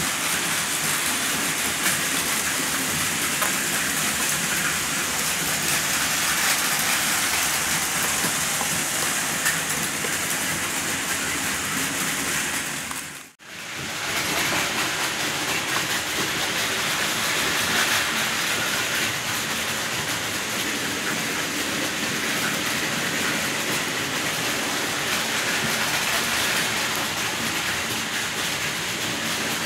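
N-gauge model trains running on KATO sectional track: a steady whirring rush of wheels and motors on the rails. The sound dips out briefly about halfway through, then comes back at the same level.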